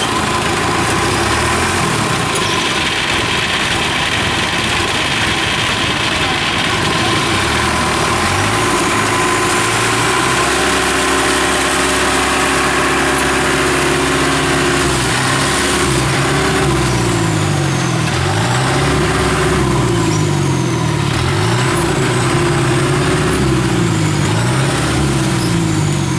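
Yanmar combine harvester's diesel engine running steadily under load in a muddy paddy. Past the middle its low note starts wavering up and down about every second and a half.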